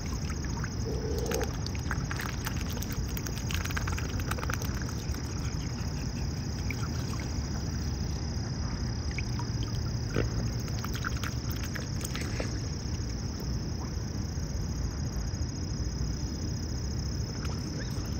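Mute swans feeding at the water's surface, their bills dabbling and dripping, giving many scattered short wet clicks and splashes over a steady low rumble.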